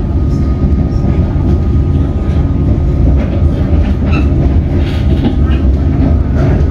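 Comeng electric suburban train running, heard from inside the carriage: a steady low rumble with a thin steady whine above it. The wheels give a few irregular clacks as they pass over the track.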